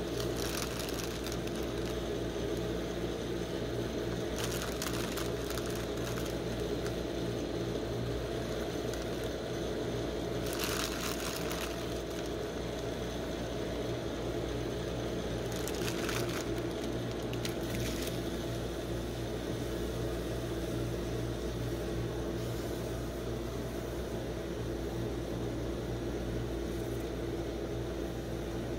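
Steady hum of a rolled-ice-cream machine's refrigerated cold plate. Several short rustles come from foil snack bags and popcorn being tipped out onto the steel plate.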